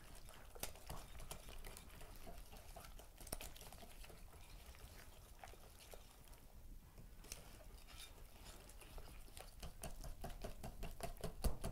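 Wire whisk beating a cream cheese mixture in a glass bowl by hand: faint, quick clicks and taps of the wires against the glass, coming faster and closer together near the end.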